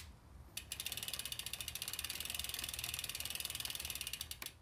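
A bicycle's rear freehub ratcheting as the drivetrain is turned by hand, its pawls clicking rapidly and evenly. The clicking starts about half a second in and thins out to a few separate ticks near the end.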